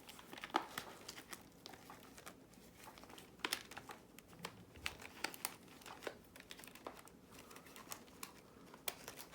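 Rustling and scattered small clicks of a Squawkers McCaw toy parrot's fur skin and plastic body being handled and pulled during disassembly.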